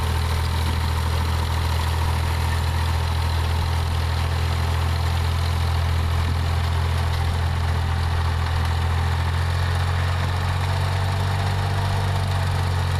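Farm tractor engine running steadily as it drives a PTO-powered Ford 501 sickle bar mower through tall grass.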